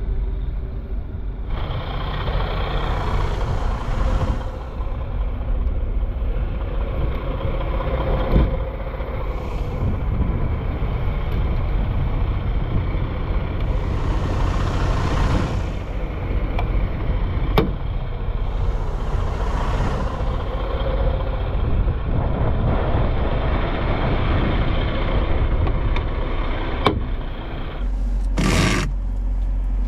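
Steady low rumble around a Freightliner Cascadia semi-truck, with gusts of wind on the microphone swelling and fading every few seconds and a few sharp knocks as the truck is handled. A short, loud clatter comes near the end.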